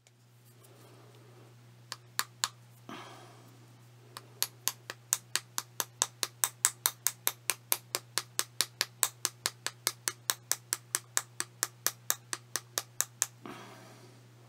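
A flat wooden stick lightly paddling the outside of a small coil pot of soft clay to smooth out the coil lines. There are a few taps about two seconds in, then a steady run of sharp taps at about four a second for some nine seconds, over a low steady hum.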